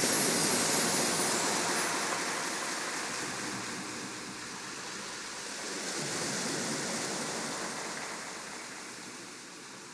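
A steady rushing noise, even and hiss-like with no distinct tones, that slowly fades, swelling briefly about two-thirds of the way through.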